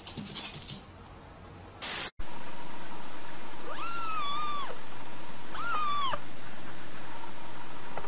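A cat meowing twice, each a drawn-out meow that rises, holds and falls, the second one shorter, over a steady hiss. Before the meows there is a short burst of noise.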